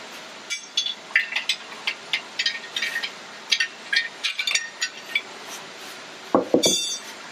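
Steel bars clinking against a 5.3 LS engine's main bearing cap as it is levered and wiggled loose from the block: a run of light metallic ticks and clicks, then a louder knock with a short metallic ring near the end.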